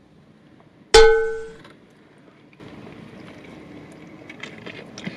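A single bell-like metallic ding about a second in: one sharp strike that rings and fades within about half a second. Later there is a faint steady background hiss with a few small clicks.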